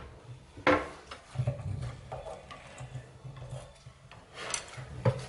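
Hands working the toilet's broken flush handle and tank fittings: a sharp knock, then rubbing and scraping, then a couple of clicks near the end.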